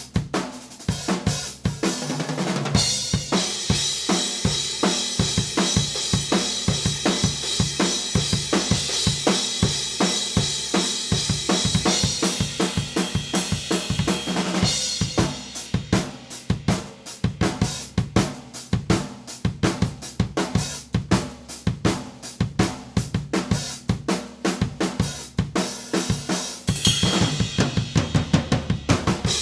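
Acoustic drum kit played steadily: kick, snare, hi-hat and cymbals, recorded raw through a single Shure SM57 used as a close room mic, with no processing. A heavy cymbal wash rides over the beat for the first half and thins out after about fifteen seconds.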